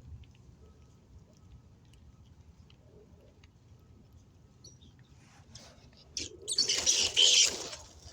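A sudden loud scuffle from fighting ground squirrels, lasting about a second and a half and starting about six seconds in, after faint scattered clicks.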